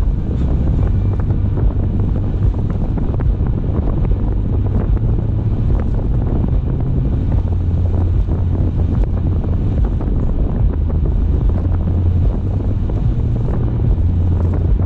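Steady low rumble of wind and road noise from a car driving at speed.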